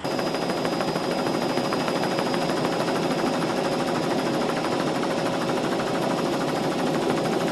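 Roller coaster train rattling along its track: a fast, even mechanical clatter at a steady level that cuts in abruptly.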